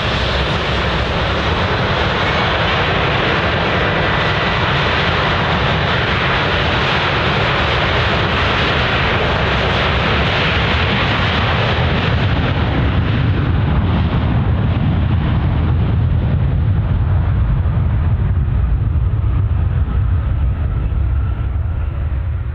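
A Sukhoi Superjet 100's twin SaM146 turbofan engines at takeoff thrust as the jet rolls away. The loud hiss and roar fade in their upper range from about halfway, a deep rumble swells, and the sound begins to die away near the end.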